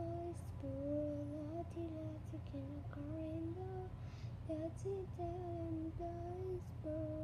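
A girl humming a slow tune, one held note after another, stepping up and down in pitch.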